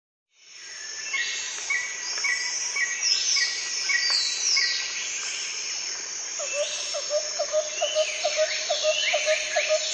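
Birds calling and singing: a short chirp repeated about twice a second, several sweeping whistled notes, and from about two-thirds of the way in a lower note repeated about three times a second.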